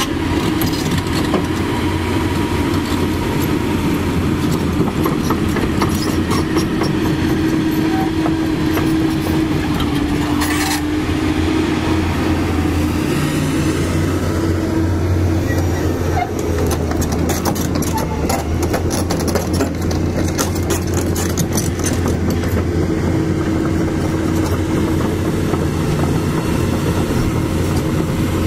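Heavy diesel engine running steadily with a deep drone. From about halfway in, a dense, rapid clicking clatter rides over it.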